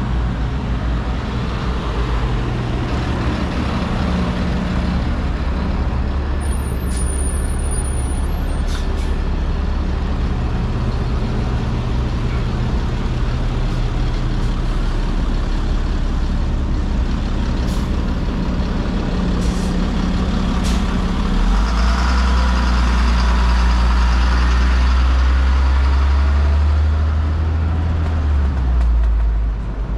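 Heavy vehicle engine running close by on a city street: a steady low drone that grows louder about two-thirds of the way through and falls away just before the end, with a few brief sharp clicks in the middle.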